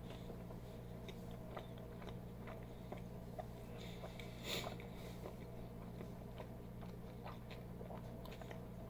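Faint closed-mouth chewing of a mouthful of bean burrito, with small wet mouth clicks and a slightly louder moment about four and a half seconds in, over a low steady hum.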